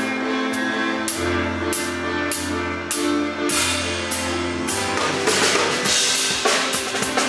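A live band playing: held keyboard and bass notes over a drum kit marking a steady beat with cymbal strokes about twice a second. About five seconds in the drumming turns busier, with denser snare and bass-drum hits.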